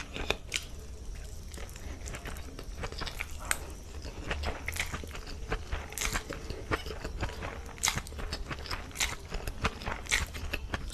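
Close-miked eating: chewing and sucking in a mouthful of stir-fried noodles, with many small, irregular wet mouth clicks.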